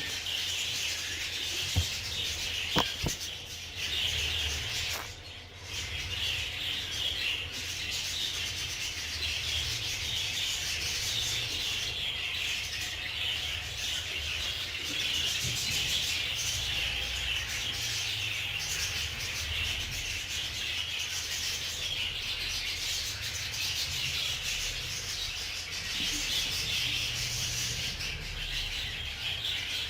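A flock of budgerigars chattering and chirping without a break, with a low rumble of handling underneath and two light knocks in the first few seconds.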